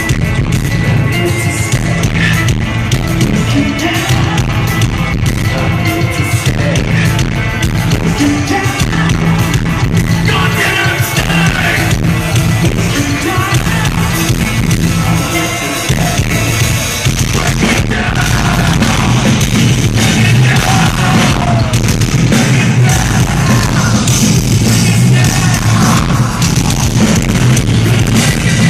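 A live metal band playing loudly with vocals, recorded on a phone microphone so that the sound is distorted and muddy, heavy in the bass.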